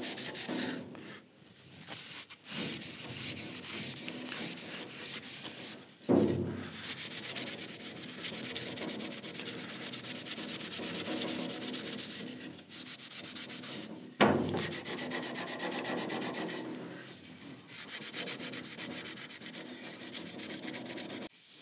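Burgundy Scotch-Brite pad rubbed by hand back and forth along the bare wood of a Telecaster neck: a steady scrubbing hiss with a few brief pauses and sharp restarts. It is de-whiskering the wood, knocking down the fibers raised by wetting to leave it smooth.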